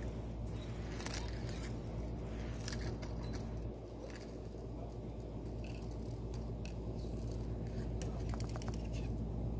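Light clicks and small rattles of cat toys being nosed and stepped among by a kitten on carpet, over a steady low hum.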